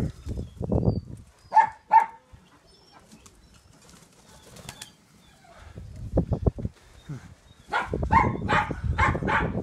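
Pigeon wings flapping in quick flurries, with two sharp loud snaps about two seconds in.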